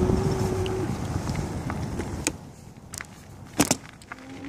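Wind buffeting a phone microphone on a moving electric bike, with a steady hum from the bike's motor that stops about a second in. From about two seconds in it goes quieter, with a few sharp clicks; the loudest comes near the end.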